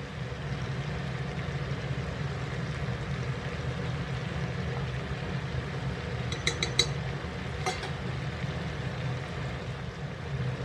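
Steady low kitchen hum, with a few light clinks of a metal spoon against a cast iron skillet about two-thirds of the way through.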